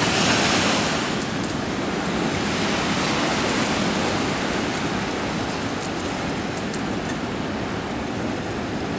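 Strong wind rushing over the microphone together with wind-whipped choppy water: a steady wash of noise, a little louder in the first second.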